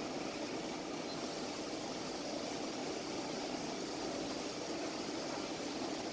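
CNC lathe machining a metal part under flood coolant: a steady hiss of coolant spraying over the even running noise of the spindle and cut, with no change.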